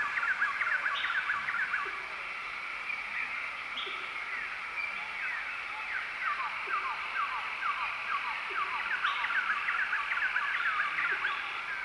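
A dense chorus of many birds chirping, with fast, short, repeated calls over a steady high-pitched background drone.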